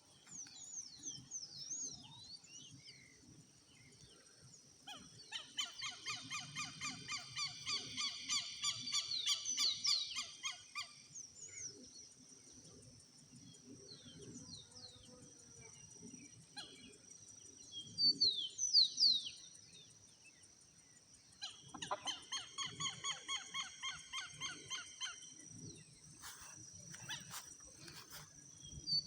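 Birds calling: quick high chirps and falling whistles throughout, and twice a long run of rapidly repeated harsh calls, about five to eleven seconds in and again from about twenty-two to twenty-six seconds. A few sharp clicks come near the end.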